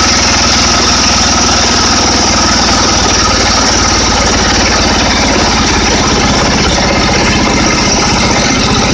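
Bolens 1220 lawn tractor's 12 hp Tecumseh single-cylinder engine idling steadily, close up with the hood open.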